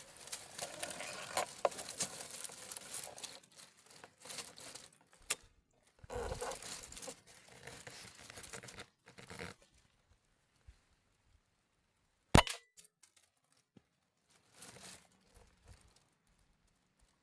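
Bursts of rustling and crinkling handling noise, then one sharp, loud crack with a short ring about twelve seconds in, followed by a brief rustle.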